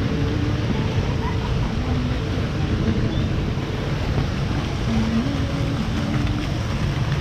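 Steady, loud rushing noise with a low rumble underneath, like an engine or wind on the microphone.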